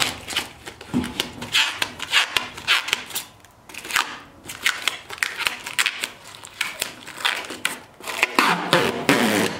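Plastic and paper packing wrap crinkling and rustling as it is handled on a stainless steel table top, with irregular small clicks and taps.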